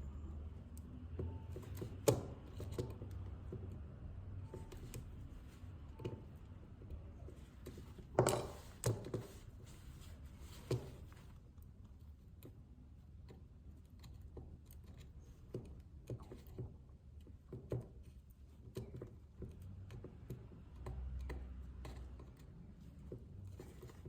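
Scattered light clicks and taps of small tools and phone parts being handled during an iPhone XR battery replacement, with a louder cluster of taps about eight seconds in, over a low steady hum.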